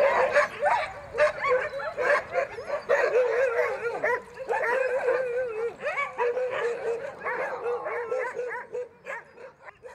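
Several sled dogs yipping and whining together, their calls wavering up and down and overlapping, dying away near the end.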